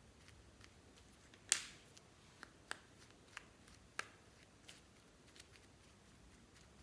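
Slime being worked by hand, giving scattered sharp pops and clicks, the loudest about a second and a half in.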